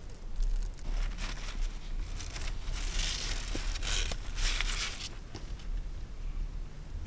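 Tent fabric rustling and crinkling close to the microphone in irregular bursts, loudest about three to five seconds in.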